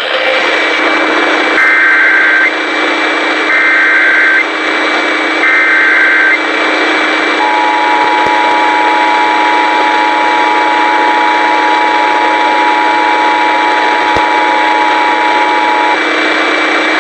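Emergency Alert System tones over radio: three short warbling data-header bursts about a second apart, followed by the steady two-tone attention signal lasting about eight and a half seconds, all over a loud hiss of static. Together they mark the start of an EAS severe thunderstorm warning broadcast.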